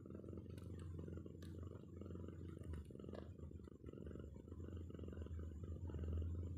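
Domestic cat purring steadily and close up, a low, continuous, rapidly pulsing rumble from a mother cat nursing her kitten.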